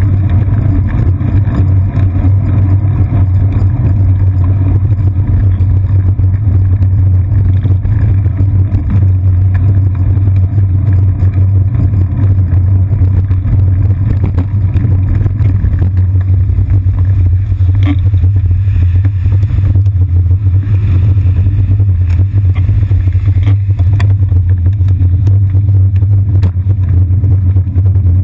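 Steady loud, low rumble of a bicycle riding through city traffic, picked up by a camera mounted on the seat post, with buses, a truck and taxis passing close alongside. A couple of sharp knocks come about two-thirds of the way in and again near the end.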